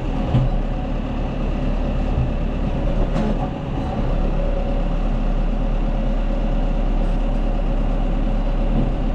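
Tractor engine running steadily while a round baler works behind it, a continuous mechanical drone with a low hum.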